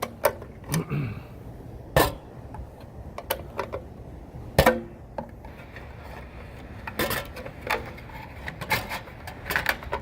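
Irregular sharp knocks, clicks and scraping as a dryer vent flapper stuck shut is worked loose and forced open, with single strikes a second or more apart.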